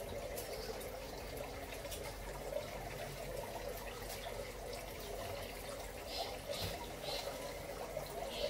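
Water trickling steadily in a garden fish pond.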